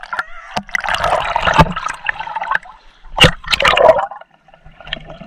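Water sloshing and gurgling right at the camera as it dips from above the surface into the water, in two loud bursts about a second and three seconds in, with sharp clicks between.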